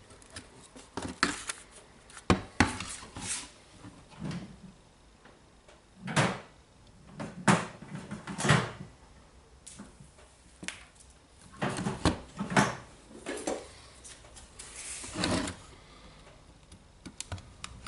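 DeWalt DCD796 cordless drill's plastic body being handled, turned over and set down on a wooden tabletop: irregular knocks and clicks with short scrapes, a dozen or so spread through.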